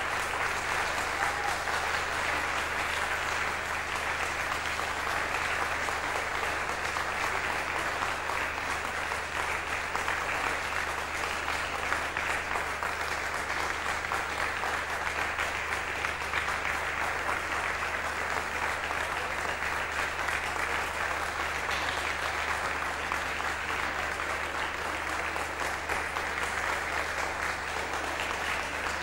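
Concert audience applauding steadily and at length.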